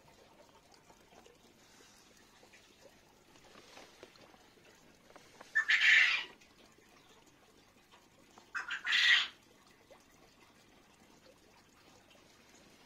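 A bird calling twice, about three seconds apart, each call loud and under a second long.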